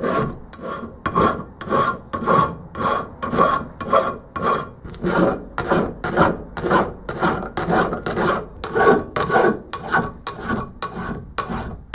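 Hand file rasping across a cast metal lathe headstock in steady back-and-forth strokes, about two or three a second.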